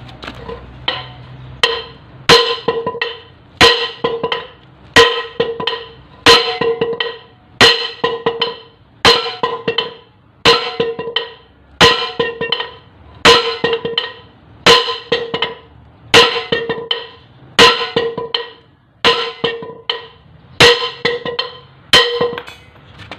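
Heavy hammer blows on the steel yoke of a propeller shaft's cross joint (universal joint), striking to drive the joint out. About fifteen hard strikes land evenly every second and a half, after a few lighter taps at the start, and each one rings with a metallic tone.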